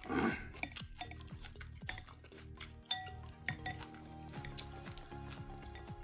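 Eating utensils clinking and tapping against a bowl of noodle soup, many short clicks scattered throughout, over background music.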